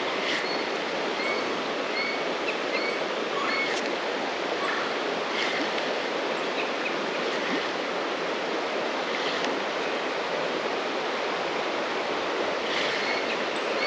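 Creek water flowing: a steady rushing hiss. Over the first few seconds there is a short run of faint high chirps, about two a second, and a few soft ticks later on.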